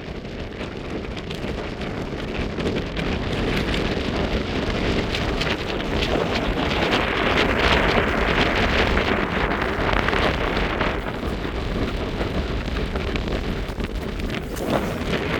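Blizzard wind gusting against a Hilleberg Jannu tent: a steady rushing noise that swells to its loudest about halfway and then eases, with a fine patter of driven snow on the fabric.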